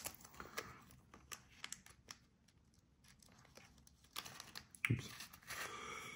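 Packaging of a Japanese sweet being torn and crinkled open by hand: scattered small crackles and ticks, a quieter pause of about two seconds in the middle, then more crinkling.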